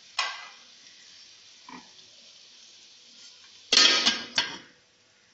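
Metal lid clanking against a metal cooking pot as the pot is covered: a sharp clank just after the start, a faint knock near two seconds, then two louder clanks close together near four seconds, each with a brief ring.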